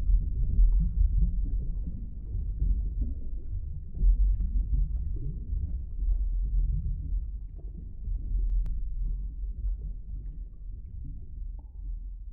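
A deep, low rumble that swells and ebbs several times, then fades away near the end.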